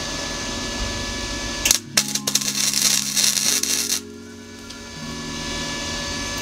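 Flux-cored wire welder's arc crackling and spitting for about two seconds as it tack-welds 6 mm rebar, starting a little under two seconds in and cutting off sharply about four seconds in.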